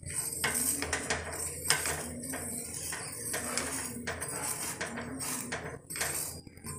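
Flat steel spatula scraping and tapping across a paratha on an iron tawa in repeated strokes, spreading ghee, over a light sizzle of fat on the hot griddle.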